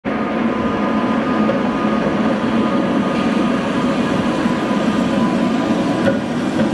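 Tatra tram passing close by on street track: a steady running noise of steel wheels on rails, with several steady hums in it.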